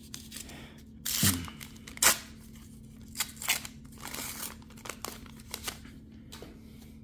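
Foil wrapper of a Flesh and Blood booster pack torn open by hand: a rough rip about a second in and a sharp snap about a second later, then the wrapper crinkling in short bursts.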